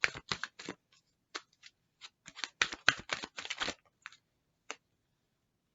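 Tarot cards being shuffled and handled: two runs of quick card snaps and flicks, then a couple of single clicks near the end.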